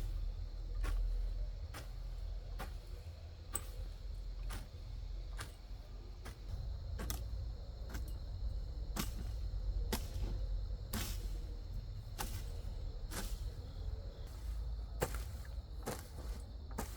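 Sharp strikes repeating at a steady pace, about one a second, over a steady low rumble.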